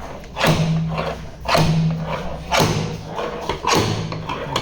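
Knocks about once a second, each followed by a short low hum: hammer blows on a car body panel during dent repair.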